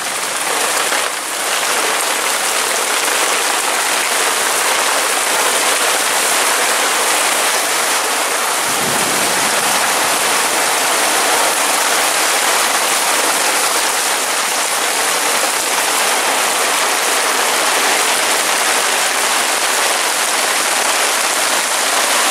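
Heavy rain pouring down in a steady, even downpour.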